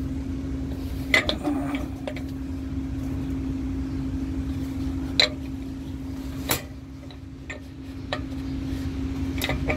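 A few sharp metal clinks and knocks as parts of the compressor's diaphragm valve assembly (housing and springs) are handled and fitted together, over a steady engine hum.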